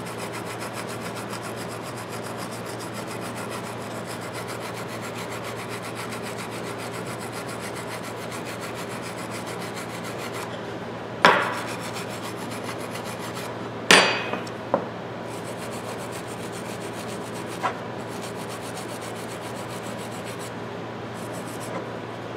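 Small brass wire brush scrubbing rapidly back and forth over the jaw of old steel pliers, a steady scratchy rasp. The brush is working into the crevices between the jaw teeth that steel wool can't reach. Two sharp knocks come a little past halfway.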